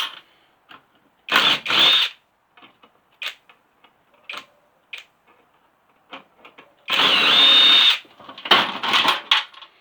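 Power drill running in two short bursts, about a second each, the second with a high motor whine that rises as it spins up, amid scattered clicks and clinks of small parts from circuit breakers being taken apart.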